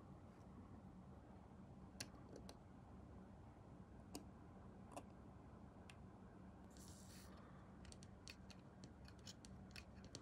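Faint, scattered clicks and snips from small model-building hand tools being worked, with a short rustle about seven seconds in and a quick run of small clicks near the end.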